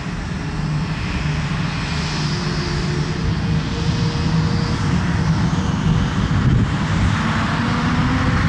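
Rolls-Royce Trent 1000 turbofans of a Boeing 787-9 spooling up for takeoff: a steady jet roar that slowly grows louder, with engine tones beginning to rise in pitch near the end.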